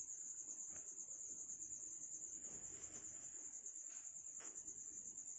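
Faint, steady, high-pitched insect drone. Three faint knocks of a billhook chopping palmyra sprouts against a brick come through it, one about a second in and two close together near four seconds.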